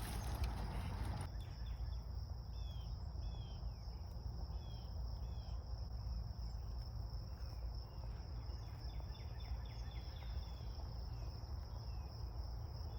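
Insects trilling in a summer meadow, a steady high unbroken note, with a few short chirps from about two to six seconds in, over a low rumble.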